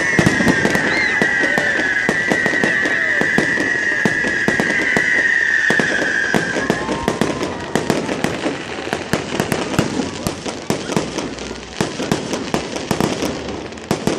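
Fireworks going off in a dense crackle of rapid pops and bangs. A high, wavering whistle sounds over it during the first half and stops about halfway through.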